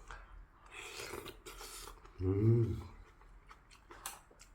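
Close-up eating sounds from a mouthful of kimchi stew: chewing and wet mouth noises, then a short hummed "mmm" a little past two seconds in, and a sharp click near the end.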